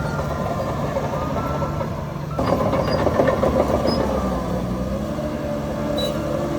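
Diesel engine of heavy earthmoving machinery running steadily. A little over two seconds in it turns suddenly louder with a rattling, clanking edge, then settles back to a steady drone.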